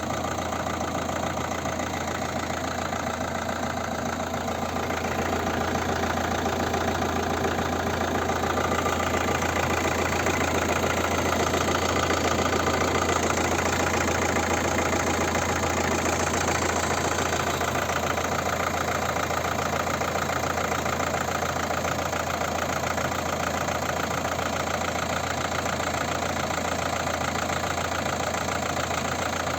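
Car engine idling with a fast, even knocking over a steady low drone: knocks and vibration that began after the flywheel was replaced with a new one.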